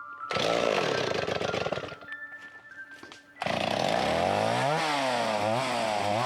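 Stihl 024 two-stroke chainsaw running in two spells: a first spell that dies down about two seconds in, then running again from about three and a half seconds with its pitch rising and falling as the throttle changes.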